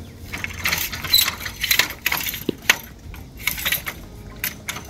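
Irregular metallic clicks, clinks and rattles of a Thule Omnistore awning's aluminium support legs being released and slid out, with a ringing clink a little over a second in.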